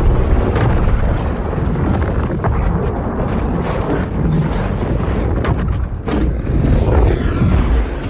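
Loud, continuous low rumbling with scattered sharp crashes, like explosions.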